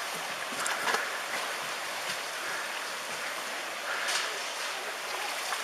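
Tsunami floodwater rushing past in a steady, noisy wash.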